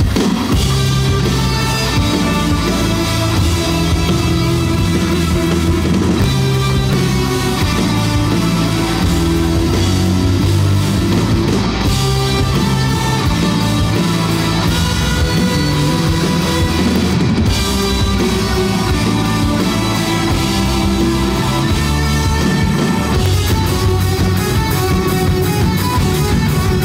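Live rock band playing an instrumental piece on electric guitars, bass guitar, keyboards and drum kit. Near the end a fast, even pulse of sharp hits comes to the fore.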